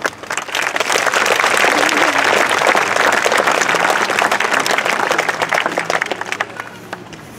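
A large crowd of schoolchildren applauding, the clapping building quickly at the start and dying away about six and a half seconds in.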